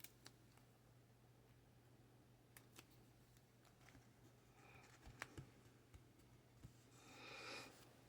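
Near silence over a faint steady low hum, with scattered faint clicks and taps of collage papers and stickers being handled on a table, and a brief soft rustle about seven seconds in.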